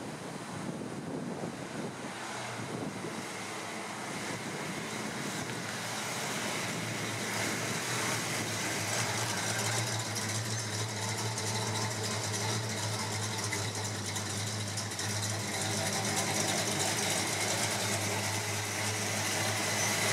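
1964 Dodge 330's 440 cubic-inch big-block V8 running at low speed, the car moving slowly close by. The engine's deep, steady note grows gradually louder as the car comes near.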